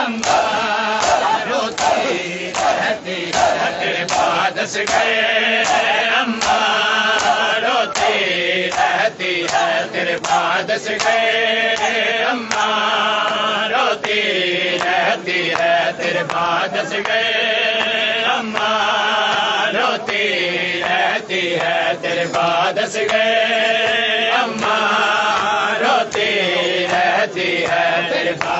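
A crowd of men chanting a nauha lament in unison, with repeated phrases. The sharp slaps of hands on bare chests (matam) keep a steady beat.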